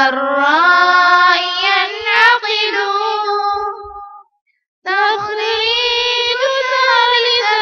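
A child's voice singing an unaccompanied Arabic nasheed in long melodic phrases with held, wavering notes. There is a short pause a little past halfway before the next phrase begins.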